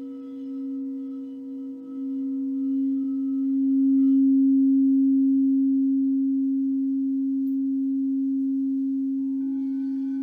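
Frosted quartz crystal singing bowl played with a mallet, ringing one steady low tone with faint overtones. It swells louder over the first few seconds, then slowly fades, and a second, higher-pitched bowl joins near the end.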